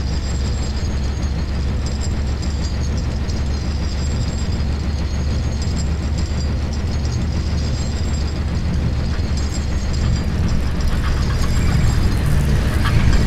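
Sound-design soundtrack made of a steady low rumbling drone under faint high tones. It slowly grows louder over the last few seconds as crackling ticks build in.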